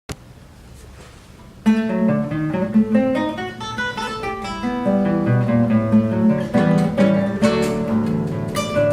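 Two acoustic guitars, a six-string and a seven-string violão, playing a choro, with plucked melody notes over a moving bass line. The playing starts about a second and a half in, after a click and a moment of near quiet.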